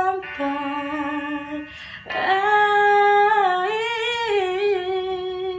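A man singing in a high, woman-like voice: a short phrase, then after a brief breath a long held note with a slight wavering vibrato.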